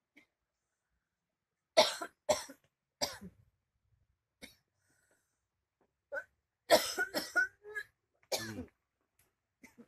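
A person coughing in fits: three hard, separate coughs, a lighter one, then a second fit of several quick coughs in a row, followed by one more.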